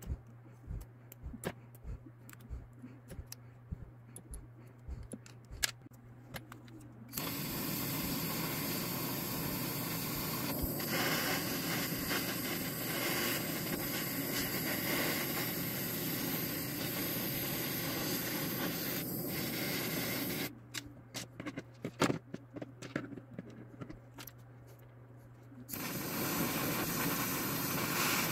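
Small clicks and taps of handling and a screwdriver on plastic parts, then a handheld butane blow torch's flame hissing steadily for about thirteen seconds. The hiss stops, more clicks follow, and the torch hisses again near the end.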